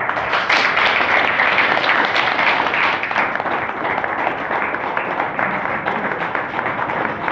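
An audience applauding: many hands clapping in a steady, dense stream that starts abruptly.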